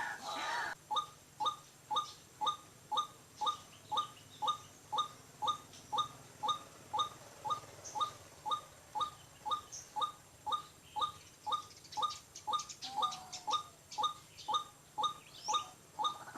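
White-breasted waterhen call: one short note repeated steadily, about twice a second, the call used to lure the bird. A brief burst of noise fills the first second before the calling starts.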